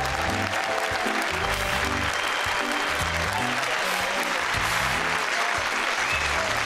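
A TV quiz show's opening theme tune, with a steady pulsing bass, as the studio audience applauds over it.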